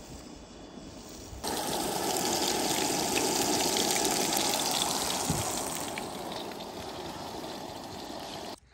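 Hamburger patties sizzling in a frying pan, a steady hiss that starts suddenly about a second and a half in, eases off over the last few seconds and cuts off just before the end.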